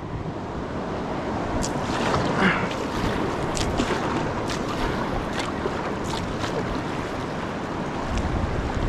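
River water rushing over rocks in a shallow rapid, with sharp splashes close by several times, and a short gust of wind on the microphone near the end.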